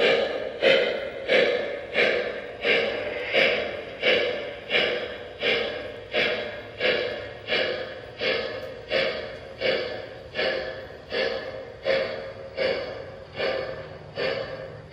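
Simulated steam-locomotive chuffing from the onboard sound system of a Lionel Legacy brass hybrid 4-4-0 O-gauge model as the train runs. It is a steady beat of about one and a half chuffs a second, growing slightly fainter near the end.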